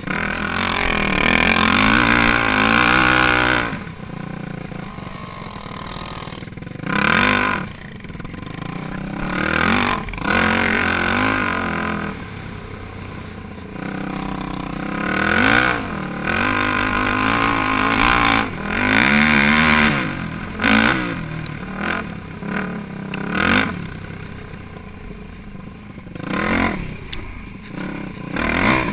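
Yamaha YFZ450 quad's single-cylinder four-stroke engine revving in repeated throttle bursts as it is ridden through snow, its pitch rising with each burst and dropping back to lower running between them. There are about a dozen bursts, with the longest in the first few seconds.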